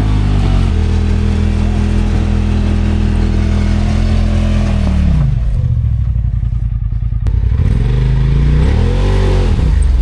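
Side-by-side UTV engine held at steady high revs, then falling off about five seconds in to a low rumble, with a quick rev up and back down near the end.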